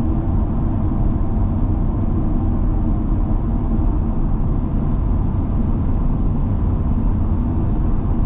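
Steady engine and road noise of a van driving at an even speed, low and unbroken.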